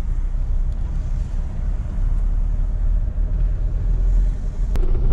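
Low, steady rumble of a car driving at low speed, heard from inside the cabin: engine and tyre noise on the road. A single sharp click near the end.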